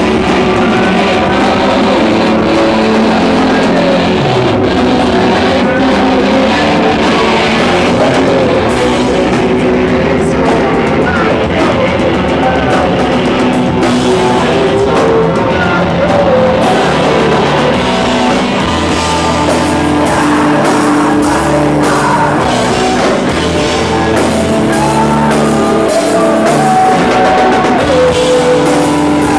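Rock band playing live and loud: electric guitars and a drum kit going without a break.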